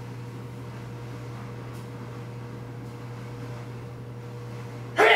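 Steady low hum of indoor background noise with a faint steady tone above it, like a fan or air conditioner running. About five seconds in, a short loud vocal sound from a man cuts in.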